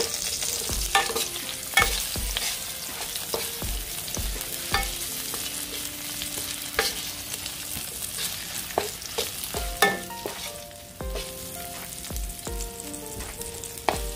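Tomato and shallots sizzling in hot oil in a pot while being stirred, the utensil knocking against the pot several times.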